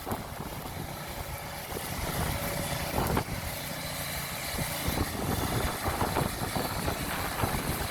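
A heavy vehicle's engine running steadily, with a short knock about three seconds in.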